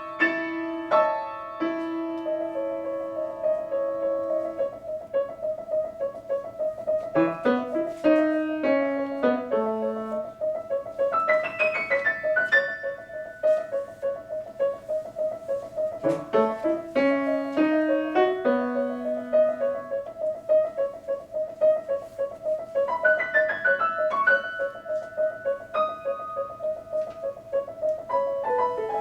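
Solo piano playing a fast, rhythmic passage: one mid-high note repeated rapidly throughout as an ostinato, with falling runs and lower melody lines played over it.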